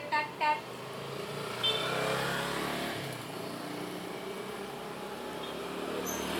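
Two short final toots of a bus's multi-tone telolet horn, then the steady noise of the bus and road traffic driving past.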